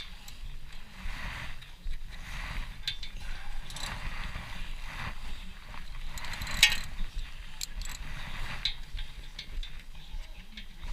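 Hand tools on a brake caliper bolt: a socket ratchet clicking and metal wrenches clinking in short, irregular bursts, with one sharper clink about two-thirds of the way through.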